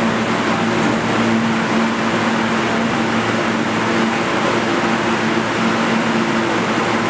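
New York City subway train standing at the platform: a steady, loud hum and hiss with a low drone, with no distinct knocks or clicks.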